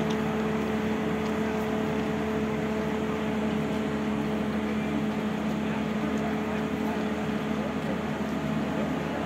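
Heavy crane's engine and hydraulics running steadily while it holds a derailed passenger coach aloft: a constant machine drone with a steady hum.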